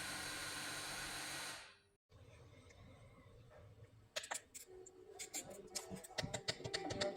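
Steady hiss and hum of a hot-air blower running, fading out about a second and a half in. After a short silence, small sharp clicks and taps begin about four seconds in and come more and more often.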